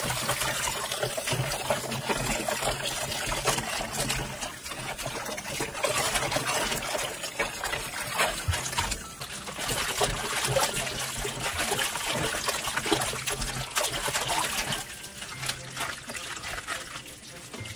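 Tap water running into a plastic basin of mallow leaves while hands swish and rub the leaves in the water: a steady trickling and splashing with wet rustles, dropping a little near the end.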